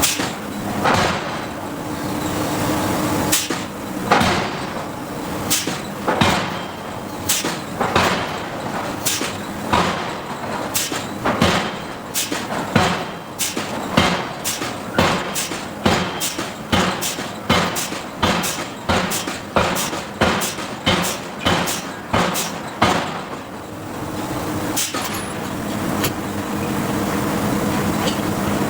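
Hydraulic forging hammer striking hot steel in a long series of heavy blows, slow and uneven at first, then a quicker steady run of about one and a half blows a second that stops near the end. A steady machine hum runs under it and carries on when the blows stop.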